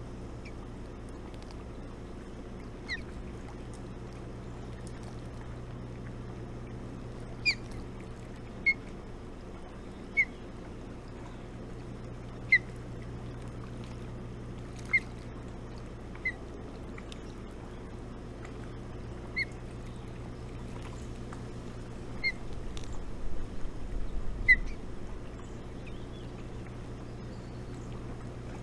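Ospreys at the nest giving short, high single peeps, one every second or two at irregular intervals, over a steady low hum. Near the end a few seconds of low rumbling and bumps.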